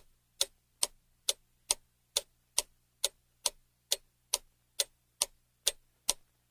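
Clock-ticking sound effect, evenly spaced sharp ticks a little over two a second, used as a countdown timer for the guess.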